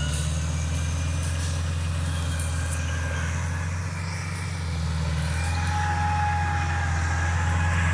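Bulldozer's diesel engine running steadily with a low drone, easing off briefly about halfway through and then picking up again. A few faint high clicks and squeaks sound over the engine.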